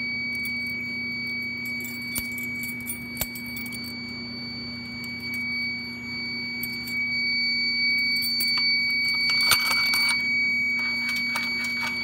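Fire-Lite fire alarm system's built-in sounder giving a steady, unbroken tone: the system is in alarm from a pulled manual pull station. A bunch of keys jangles near the end.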